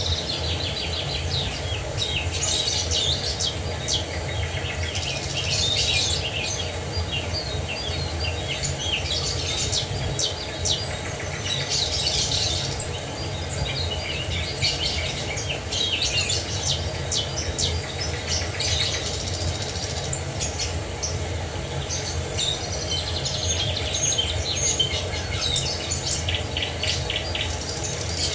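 Several songbirds chirping and trilling in quick phrases, over the steady rush of a waterfall.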